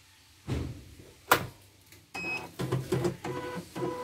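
Elnoss computerized embroidery machine resetting: a thump and a sharp click, a short high electronic beep about two seconds in, then its motors whirring steadily as the machine initializes.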